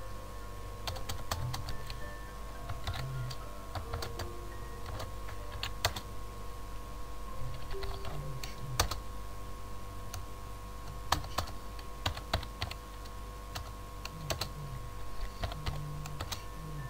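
Computer keyboard typing in short bursts of keystrokes with pauses between, over a steady low hum.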